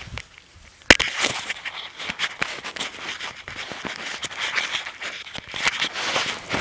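Footsteps through dry grass, with rustling and knocking from the camera being handled and brushed against clothing; a sharp knock about a second in.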